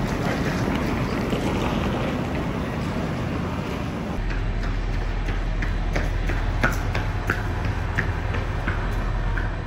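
Railway station platform ambience: a steady rumble of trains and hall noise, with a low steady hum joining about four seconds in. Footsteps tick on the paving at walking pace through the second half.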